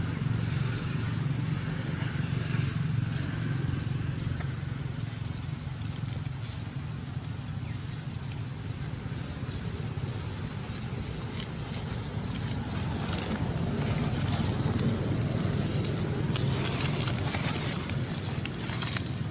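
Outdoor ambience: a steady low rumble under a steady high hiss, with short high chirps every second or two. Near the end, crackling or rustling comes in.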